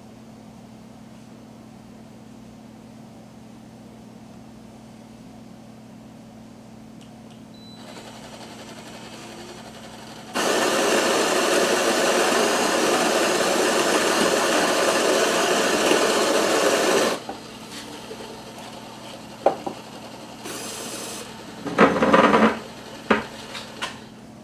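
Spinn centrifuge coffee maker running a drip brew cycle: a steady low hum, then a loud, harsh whirring that lasts about seven seconds. After it stops come a few clicks and a short burst of machine noise near the end.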